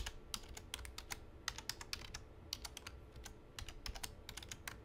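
Computer keyboard keys tapped in quick, irregular succession while a password is typed.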